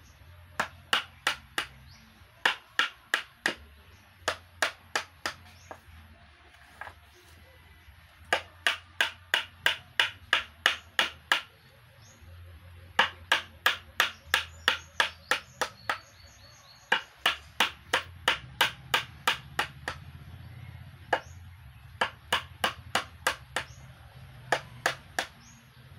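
Mallet striking a chisel as it carves the cups of a wooden sungkaan board: sharp wooden taps in quick runs of about four to eight strokes, roughly three a second, with short pauses between runs.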